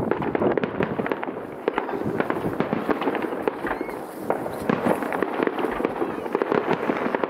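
Distant aerial fireworks: a dense, unbroken run of bangs and crackles from many shells bursting at once.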